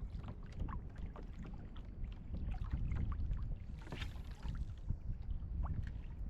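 Wind buffeting the microphone in a low, steady rumble, with water lapping and knocking lightly against a kayak hull and a brief hiss about four seconds in.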